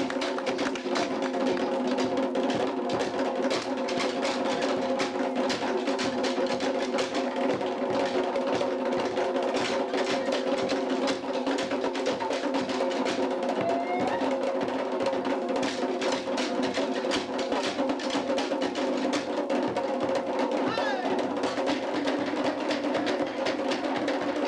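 Tahitian dance drumming: a fast, unbroken rhythm of sharp, woody drum strikes, with a steady droning tone underneath.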